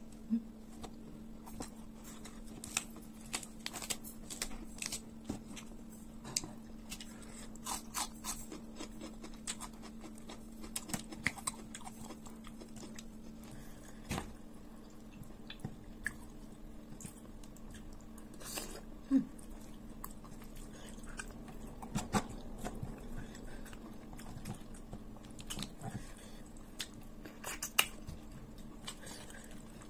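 Close-mic mukbang eating sounds: a person chewing a mouthful of tiwul (steamed cassava rice) and spicy fish, with scattered irregular sharp clicks and crunches of the mouth and fingers, over a steady low hum.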